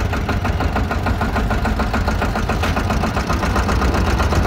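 Motorboat engine running steadily, a low drone with a fast even pulse.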